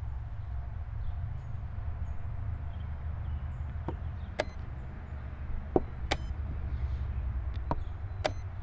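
Chess pieces set down on the board and chess clock buttons pressed during a blitz game: about six sharp clicks, starting about four seconds in, over a steady low rumble.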